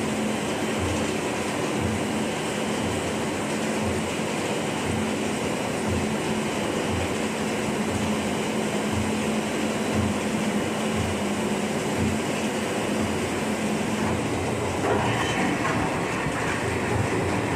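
Minghung automatic veneer peeling line running: a steady machine hum with repeated low knocks as logs are peeled and the veneer sheet is carried along the conveyor. A harsher hiss joins about fifteen seconds in.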